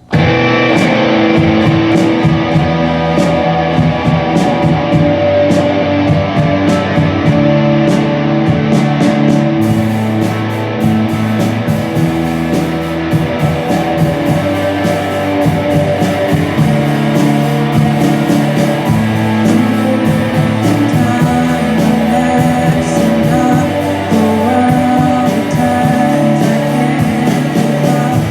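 Rock band playing a song: electric guitar, bass and drums come in together at full volume and keep a steady beat, with the bass line moving between notes.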